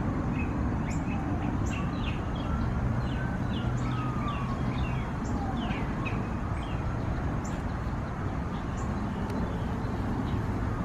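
Small songbirds chirping over and over in short, quick notes above a steady low outdoor rumble. A faint tone slowly rises and falls in pitch during the first half.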